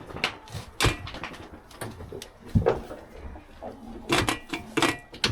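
Irregular sharp knocks and clatters, a dozen or so, several bunched together about four to five seconds in, a few with a brief ringing tone.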